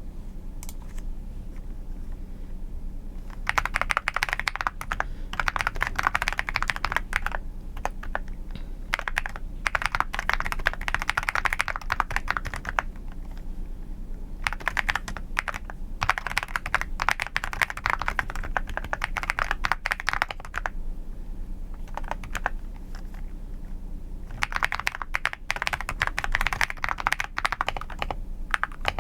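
Typing on a computer keyboard: fast runs of soft, clacky keystrokes lasting a second to a few seconds each, broken by short pauses.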